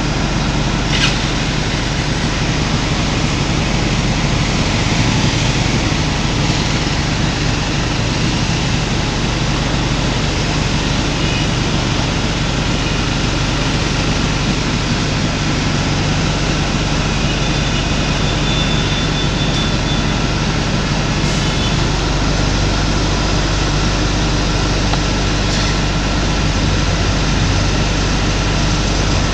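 A steady, loud mechanical rumble and hiss with a low hum, the sound of a running motor or engine; a faint click about a second in.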